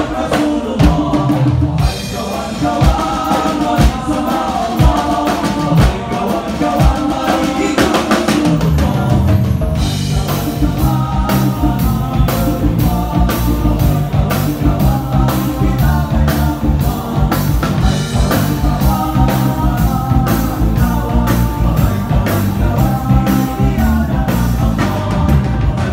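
Live band music with group singing, played on drum kit, congas, electric guitars and keyboards. About ten seconds in, the band comes in fuller, with a steady drum beat and a heavier bass line.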